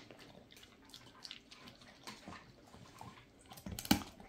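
A dog chewing a treat held between its paws: faint, irregular chewing clicks and smacks, with a louder run of them near the end.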